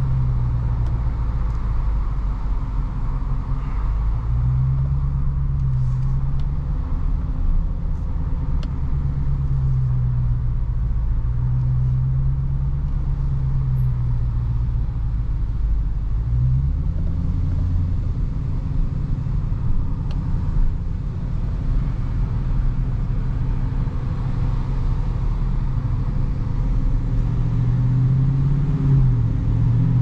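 Dodge Charger Daytona's 392 (6.4 L) Hemi V8 running at low revs while creeping in slow traffic, its low note wavering with small throttle changes. The pitch rises near the end as the car speeds up.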